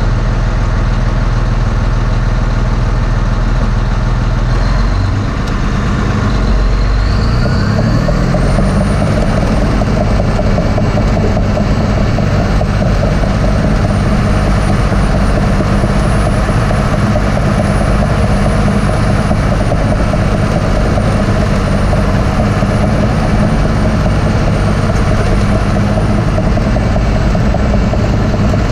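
Cat D6T LGP bulldozer's diesel engine, heard from inside the cab. It runs at low revs, revs up about five to eight seconds in, and then holds steady at higher revs while the dozer pushes dirt, with a faint high whine above it.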